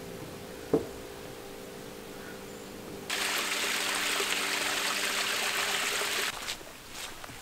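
Small canyon creek trickling over rocks, starting abruptly about three seconds in and cutting off just after six seconds. Before it there is a faint steady hum and a single sharp knock about a second in. Near the end there are a few knocks.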